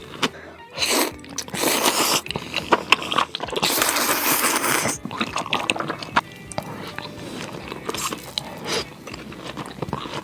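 Close-up mouth sounds of eating spicy noodles: crunchy, wet chewing and biting with many small clicks, and a louder noisy stretch of about a second, around four seconds in.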